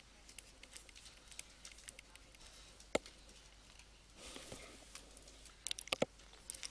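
Faint taps and scratches of a stylus writing on a tablet screen, with a sharper click about three seconds in and a few more clicks near the end.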